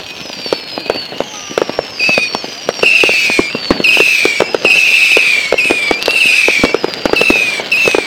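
Consumer fireworks going off: a string of short falling whistles, one after another, over rapid crackling pops. The whistles grow louder about three seconds in.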